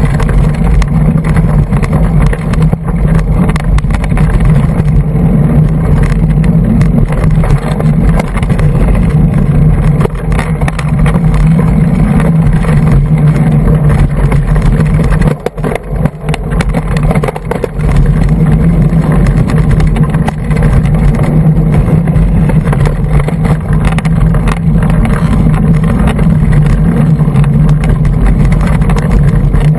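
Riding noise from a Cannondale hardtail mountain bike on singletrack: a loud, steady low rumble of wind and trail buffeting on the GoPro's microphone, with the bike's clicks and rattles over the ground. It eases off briefly about halfway through, then picks up again.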